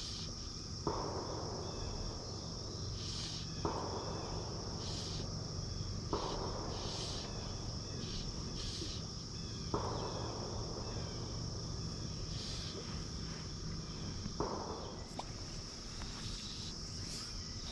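Steady chorus of crickets and other insects in a high, even band. Over it come five soft swishes a few seconds apart, from fly line being stripped to twitch a bass popper on the water.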